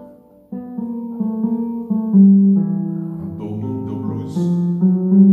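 Keyboard playing single notes of a blues scale one after another, each note ringing into the next, after a brief pause at the start.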